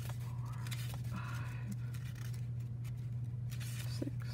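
Pages of a thin staple-bound pocket notebook being leafed through one by one as they are counted, with short papery rustles and flicks. A steady low hum runs underneath.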